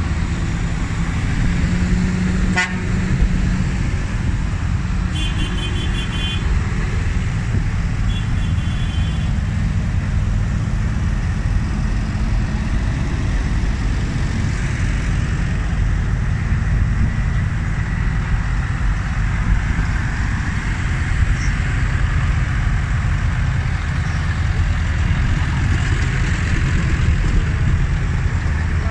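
A convoy of tractors driving past with a steady low diesel engine rumble. A horn sounds in two short runs of rapid toots, about five and eight seconds in.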